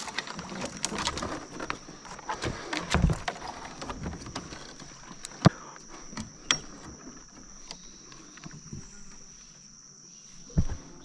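Paddle strokes and splashes as a fishing kayak is paddled along, with hollow knocks of the paddle against the plastic hull, the sharpest about five and a half seconds in and a low thump near the end. A steady high thin whine runs underneath.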